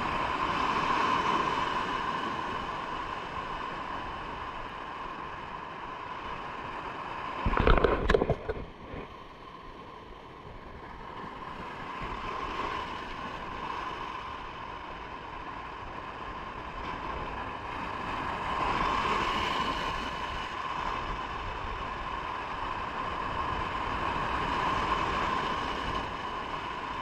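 Steady seaside noise of surf and wind, slowly swelling and easing. About eight seconds in there is one short, loud thump.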